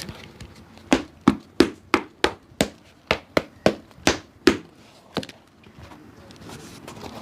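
A hammer tapping on a shoe in a quick run of about eleven sharp blows, roughly three a second, then one more after a short pause.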